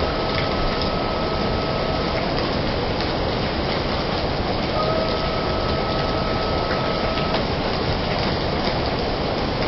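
Heavy rain falling, a dense steady hiss. A faint steady tone with a higher overtone sounds for about two and a half seconds at the start and again from about five seconds in.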